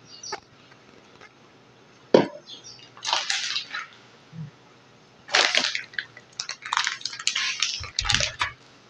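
A clear plastic zip-top bag being handled and crinkled in several short bursts, with a sharp click about two seconds in and a dull knock near the end.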